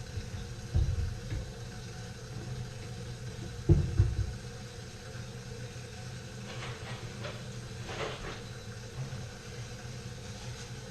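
Steady low background hum, broken by two handling thumps about one and four seconds in, the second the louder, and a few faint light clicks and scrapes a little later.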